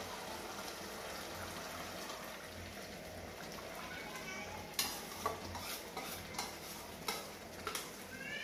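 Food sizzling in a clay pot over a gas burner. From about five seconds in, a steel spoon clicks and scrapes against a plate and the pot rim as ground coconut mixture is scooped into the pot.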